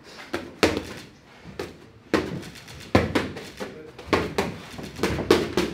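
Boxing gloves hitting focus mitts in a run of hard punches, about a dozen sharp smacks thrown in quick combinations of two or three with short pauses between.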